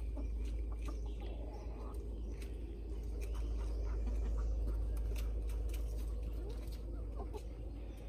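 Hens clucking faintly in the background over a steady low rumble, with scattered light clicks.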